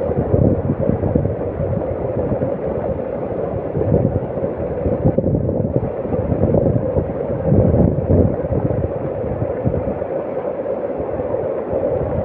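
Floodwater rushing: a loud, steady wash of water noise with irregular low rumbling surges.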